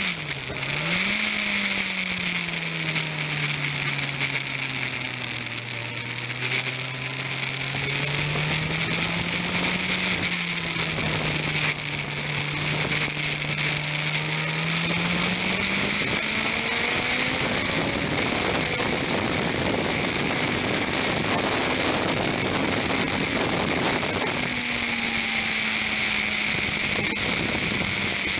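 Motorcycle engine running at part throttle, heard onboard with wind rushing over the camera. The revs dip with a downshift right at the start, stay low and steady through the first half, then rise about two thirds of the way in and hold higher to the end.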